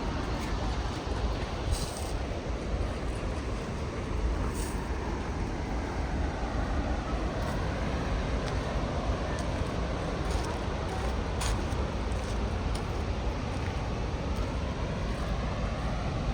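Steady roar of a high waterfall in full monsoon flow: a constant rushing rumble, heaviest in the low end, with a few faint brief ticks over it.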